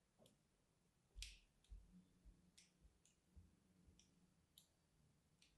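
Faint, crisp clicks and ticks of a thin blade scoring lines into a bar of soap, about ten scattered irregularly, the loudest about a second in.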